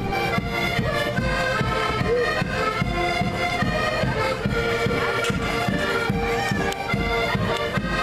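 A group of accordions playing a tune together, held chords and melody over a steady pulsing beat in the bass.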